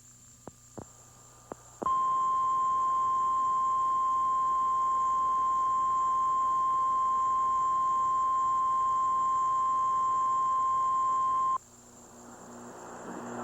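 Emergency Alert System attention signal: a single steady tone of about 1050 Hz, the National Weather Service warning tone, held for about ten seconds and then cut off abruptly, announcing a tornado warning. A few faint clicks come just before it, and a rising hiss follows near the end.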